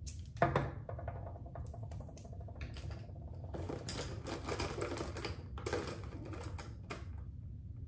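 Makeup items and tools clicking and clattering as they are handled and rummaged through on a counter. There is a sharp knock about half a second in and a busier run of rustling clatter from about three and a half to six seconds in.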